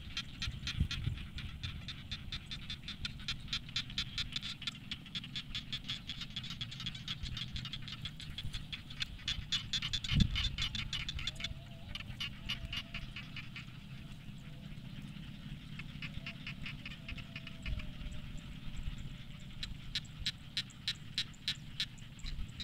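Frog chorus: many frogs calling at once in a dense, rapid pulsing that thins out in the middle and builds again near the end, over a low rumble. A single thump about ten seconds in.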